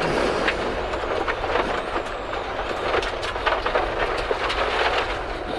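Rally car driving a stage, heard inside the cabin: a steady mix of engine and road rumble, with frequent sharp ticks and knocks from the car's body and underside.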